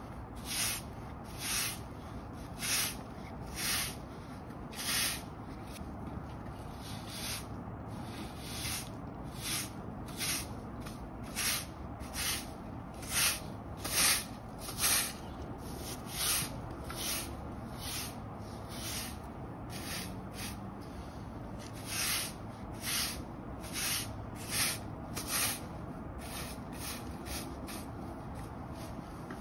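Hard-bristle push broom sweeping dirt and leaf debris across concrete block paving, a scratchy swish with each short stroke, about one a second, with a few seconds of fewer, weaker strokes past the middle.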